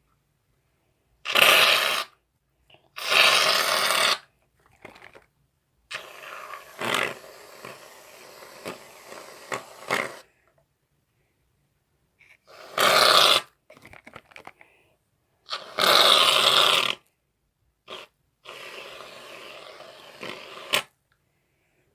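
Aerosol can of shaving foam spraying in four short, loud hissing bursts, with quieter stretches of handling noise between them.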